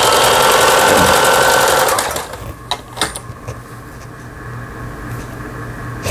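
Toyota Grace 500 household sewing machine stitching rapidly for about two seconds, then stopping abruptly, as it sews a test seam after repair. A low steady hum and a few light clicks follow.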